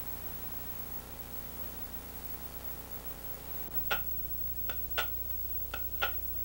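Steady hum and hiss of an old film soundtrack; about four seconds in, a clock begins ticking, a softer tick then a louder tock about a third of a second apart, repeating roughly once a second.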